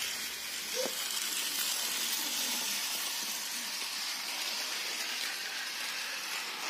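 Rail King battery-powered toy train running along its plastic track: a steady, even whirring hiss of the small motor and wheels.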